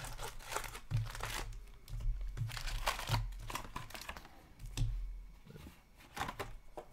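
A cardboard hockey card box being opened and its foil-wrapped card packs pulled out: irregular crinkling, rustling and scraping of foil and cardboard, with some tearing.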